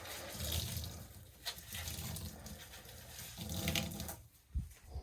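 Water running out of the opened drain pump filter housing of an LG front-loading washing machine, draining the water trapped in the machine, with a few louder swells of flow.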